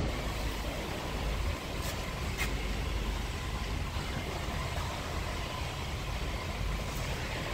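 Steady low engine rumble, with two light clicks about two seconds in.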